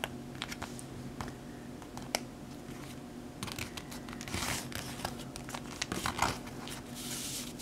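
A sheet of printer paper being folded and creased by hand: scattered light crinkles and taps, then a denser run of rustling and crinkling from about halfway through as a squash fold is pressed flat.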